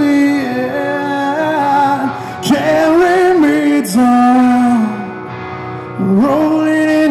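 Live rock song: a male singer holds long sung notes with vibrato across three phrases, over band accompaniment, heard loud through the concert sound system.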